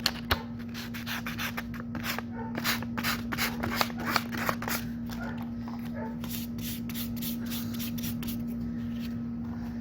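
Sandpaper rubbed by hand over the surfboard's small cracks, in quick back-and-forth strokes of about three or four a second that fade to lighter rubbing about halfway through. The spots are being sanded down to ready them for epoxy.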